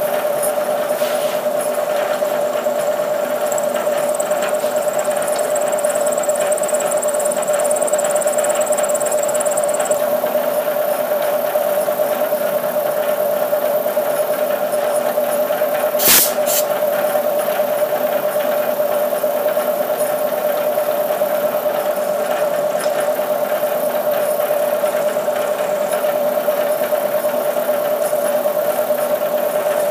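Bridgeport milling machine running, a 3/16-inch slot drill cutting a keyway in a shaft: a steady machine hum with a constant pitched whine. A faint high whistle stops about a third of the way through, and a single sharp clack comes about halfway.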